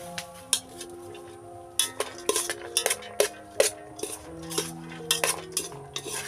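A spoon stirring corn fritter batter in a bowl, knocking and scraping against its side in a dozen or so sharp, irregular clinks, over soft background music.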